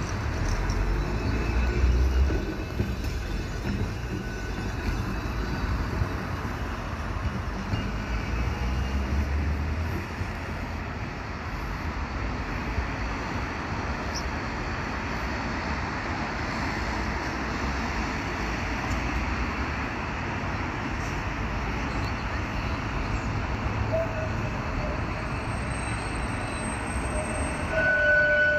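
Vintage electric tram running past close by on street track, its motors and wheels giving a low rumble for the first ten seconds or so as it moves away. A brief squeal comes up near the end.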